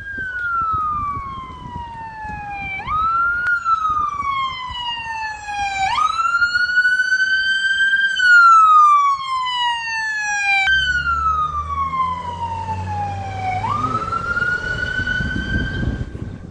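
Ambulance's electronic siren on wail: each cycle jumps quickly up in pitch and slides slowly down over about three seconds. It grows loudest as the ambulance comes close and passes. A low engine rumble joins about two-thirds of the way in, and the siren shuts off near the end.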